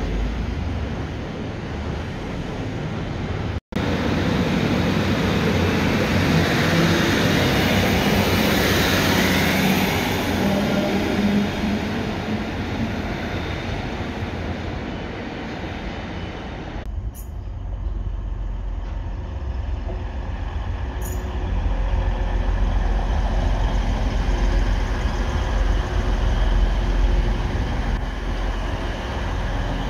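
Diesel multiple units at station platforms. First a Northern Sprinter diesel unit runs slowly in toward the platform. Then a TransPennine Express Class 185 diesel unit's underfloor engines run as it moves past, the low rumble growing louder in the second half.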